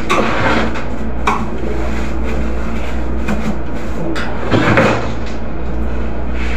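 Knocks and rustles of items being handled on storeroom shelves, over a steady low hum; the loudest clatter comes about four and a half seconds in.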